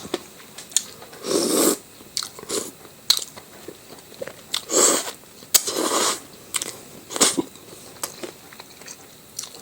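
Close-miked eating: crunchy bites and chewing, with small mouth clicks between a few louder bites.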